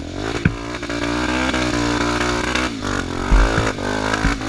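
Dirt bike engine revved hard and held high as the bike struggles up a muddy rutted climb, the wheel spinning in the mud; the revs drop about two and a half seconds in, then pick up again, with a few dull thumps from the bike.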